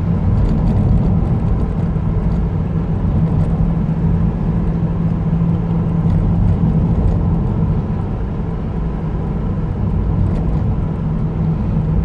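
Car engine and tyre noise heard from inside the cabin while driving: a steady low drone with an even hum.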